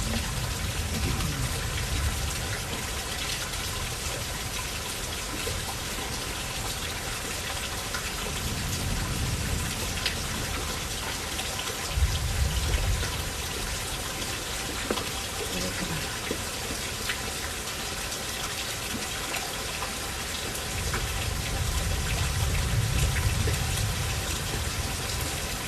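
Steady rain falling, an even hiss throughout, with low rumbles swelling and fading several times.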